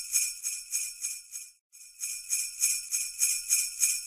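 Jingle bells shaken in a steady rhythm, about four shakes a second, with a brief break about a second and a half in.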